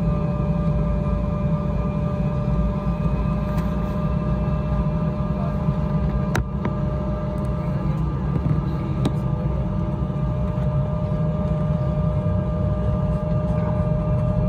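Cabin noise inside an Embraer E175 airliner on the ground: a steady low rumble with a constant whine above it, and a couple of light clicks around the middle.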